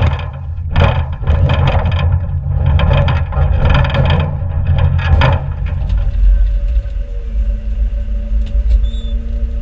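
Diesel tractor engine running under load, with repeated clattering and scraping strokes for about the first six seconds. It then settles to a steadier, deeper running note.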